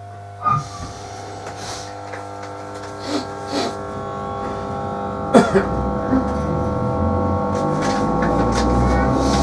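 Class 321 electric multiple unit heard from inside the carriage: a steady hum of several tones from its electrical equipment, broken by a few sharp clicks and knocks. From about halfway a low rumble builds and the level climbs steadily as the traction motors take power and the train gets under way.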